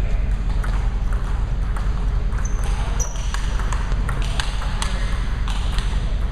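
Table tennis rally: the celluloid ball ticking off paddles and table about every half second, over a steady hall hum.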